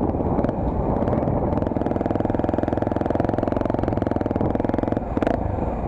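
Honda Tornado 250's single-cylinder four-stroke engine running as the motorcycle rides slowly, picked up by a helmet-mounted action camera, its firing pulses a fast even beat. A brief burst of noise comes about five seconds in.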